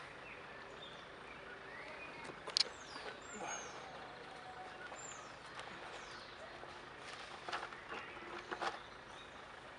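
Scattered clicks and knocks of hand work up under a car, the sharpest about two and a half seconds in and a few more near the end; a bird chirps twice with short calls falling in pitch.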